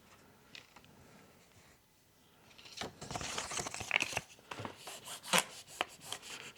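Quiet at first. About two and a half seconds in, a run of rustling and crinkling starts, with small sharp clicks among it, as the new battery and its plastic-backed parts are handled and pressed into place inside the opened iPad mini 4.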